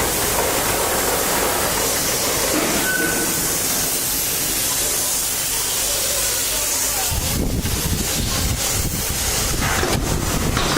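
Loud, steady hissing noise of workshop machinery, with a low rumble joining about seven seconds in.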